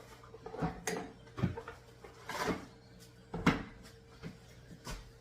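Kitchen handling sounds: several sharp knocks and clatters of containers and utensils being picked up and set down, with a short rustle about two and a half seconds in, over a faint steady hum.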